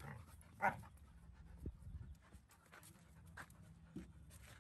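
Two puppies play-fighting: panting, with one short, loud dog vocal sound about two-thirds of a second in.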